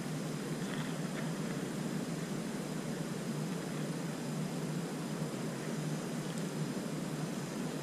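Steady outdoor background hiss, with a few faint clicks about a second in.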